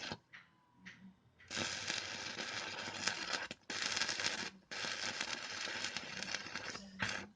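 Electric welding arc crackling and hissing, powered by a homemade self-oscillating SMPS welding inverter. A couple of short sputters come first, then the arc holds from about a second and a half in for roughly five and a half seconds, breaking off briefly twice, and cuts out near the end.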